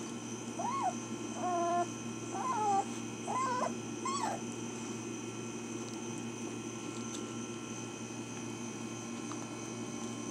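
American pit bull terrier puppy whimpering: about five short, high whines in the first four or so seconds, then it stops. A steady background hum runs underneath.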